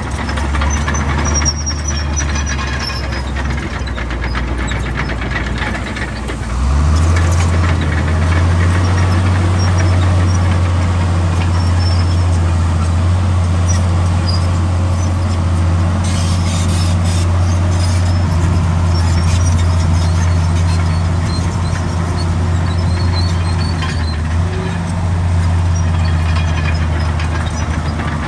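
Heavy diesel engine of earthmoving machinery running steadily, its note stepping up and getting louder about seven seconds in as it comes under load, with occasional faint high squeaks.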